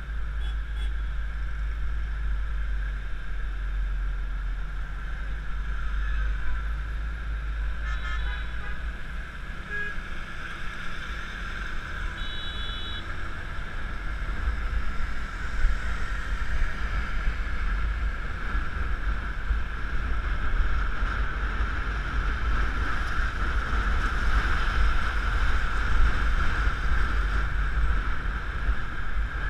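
Riding a Yamaha Mio Classico scooter in city traffic: steady wind rumble on the helmet-mounted microphone over the scooter's running engine and the surrounding motorbikes. A short horn beep sounds about twelve seconds in.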